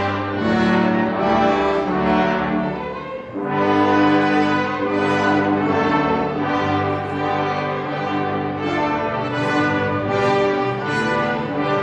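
Youth orchestra playing a hymn arrangement, with the brass section of trumpets and trombones in front and strings beneath, in held chords. There is a brief break in the sound about three seconds in, then the playing carries on.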